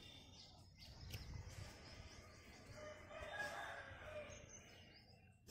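Faint rooster crowing, one long call about three seconds in, over light background noise.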